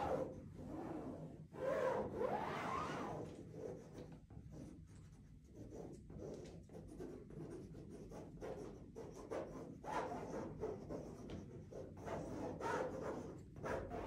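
Tip of a paint marker loaded with low-viscosity acrylic paint scratching and rubbing across a large white painting panel in irregular strokes. The strokes are loudest for a second or so near the start and again near the end.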